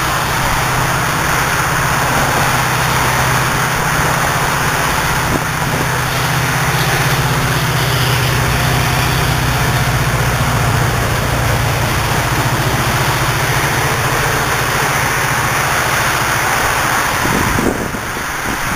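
A vehicle engine running steadily with a low, rapidly pulsing hum and a rushing noise over it, cutting off near the end.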